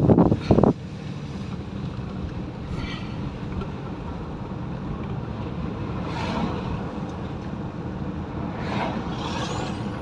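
Car driving, heard from inside the cabin: a steady hum of engine and tyre noise, with a few brief whooshes, one of them rising in pitch near the end. It opens with a short loud burst of sound lasting under a second.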